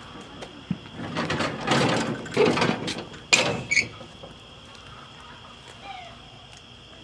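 Empty plastic two-wheeled garden dump cart rattling as it is wheeled over pavement and wood chips, then set down with two sharp knocks a little over three seconds in.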